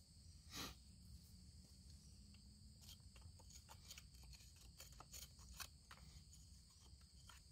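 Quiet clicks and scrapes of fingers and a small metal pick working at dirt and rock to free a Herkimer diamond quartz crystal, with one small knock about half a second in and more clicking in the second half. A steady high-pitched insect drone runs underneath.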